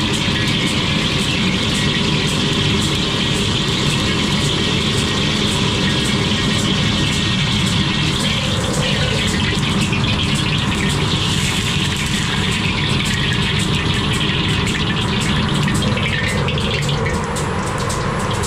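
Steady roar of a commercial gas wok burner running at full flame, with the kitchen's ventilation running alongside. The roar eases slightly near the end.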